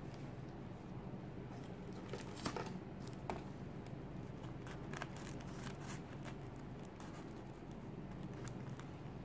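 Stiff, glossy fabric rustling and crinkling as hands bend a strip of folded pleats into a ring. There are a few sharp crackles, the loudest about two and a half seconds in, over a faint low hum.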